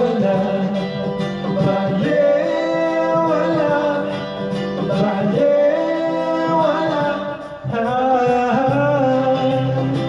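A man singing karaoke into a microphone over a recorded backing track, his voice carrying the melody through the loudspeakers.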